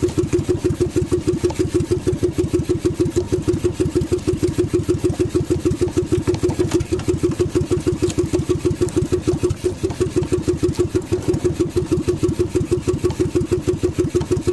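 Outrigger fishing boat's small engine running steadily, with an even, rapid pulsing beat.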